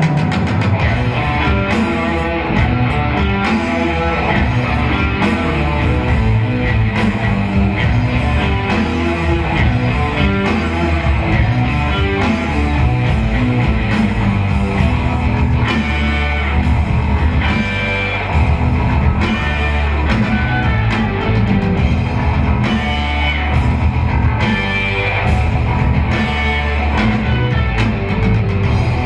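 Rock band playing live: electric guitars over bass and drum kit, loud and continuous.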